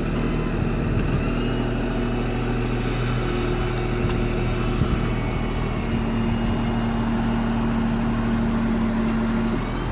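Forklift engine running steadily at idle, its low hum shifting pitch a few times.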